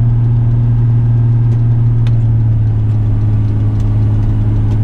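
Heavy rigid truck's diesel engine running with a steady low drone while driving, with a few faint clicks over it.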